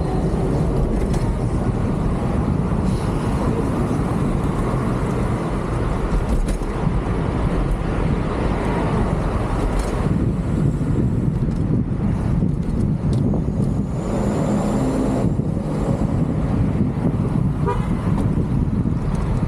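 Road traffic noise and wind rushing over the microphone of a camera on a moving bicycle, with a vehicle horn honking.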